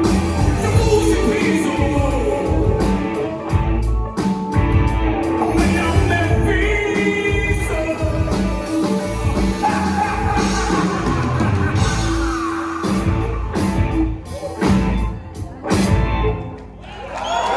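Progressive rock band playing, with singing over guitar, bass and drums; the music thins out briefly near the end.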